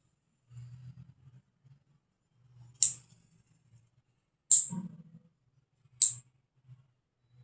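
Nail clipper snapping through long, month-old nails: three sharp clips, about a second and a half apart, with faint low handling noise between them.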